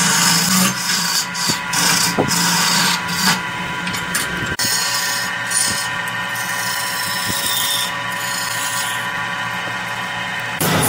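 Wood lathe running with a steady whine while a hand-held turning gouge cuts the spinning redwood vase blank, a rough scraping noise that comes and goes as the tool bites.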